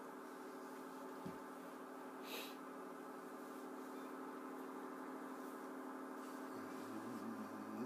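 A steady, faint humming drone with many evenly spaced overtones, unchanging in pitch; a lower wavering tone joins it near the end.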